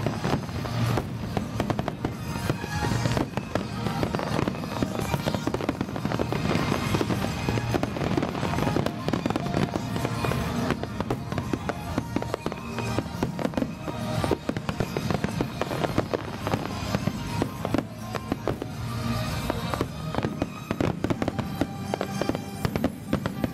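Fireworks bursting and crackling in rapid, irregular succession, with music playing underneath.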